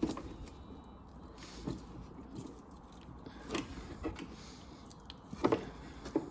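A few scattered light clicks and knocks of hands handling parts and tools, about five over a few seconds, the loudest near the end, over a low steady hum.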